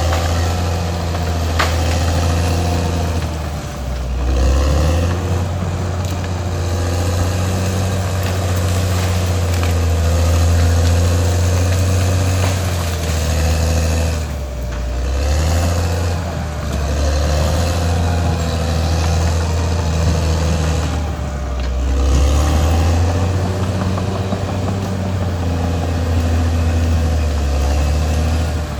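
Caterpillar D6R XL bulldozer's diesel engine running at work, its note rising and dipping several times as the load changes. There is one sharp click a little over a second in.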